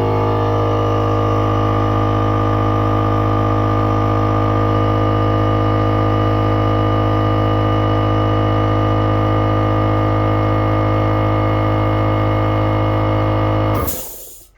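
Reed-valve air compressor running steadily with a constant low hum, its reed valves rebuilt with flat reeds cut from a feeler gauge. It runs quietly without rattling, with good draw. Near the end it shuts off with a brief burst of noise and winds down.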